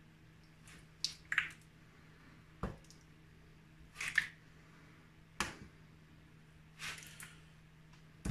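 Pieces of chicken in a wet tandoori yoghurt marinade squelching as they are scooped from a glass bowl and laid into a metal roasting tin. It comes as a string of short, separate squishes and soft knocks about every second or so.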